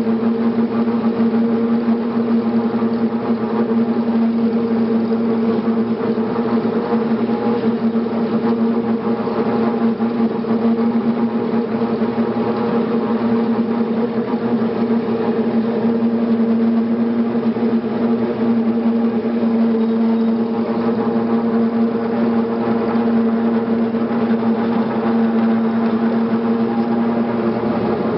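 Farm tractor engine running at a steady speed, a constant drone that never changes pitch.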